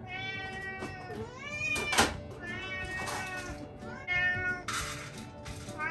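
Several house cats meowing over one another, repeatedly and insistently, while waiting to be fed. A single sharp clack sounds about two seconds in, and a short noisy burst comes near the end.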